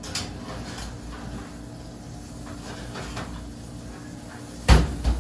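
Light clatter of things being handled in a kitchen, then a loud thump near the end, followed by a smaller knock.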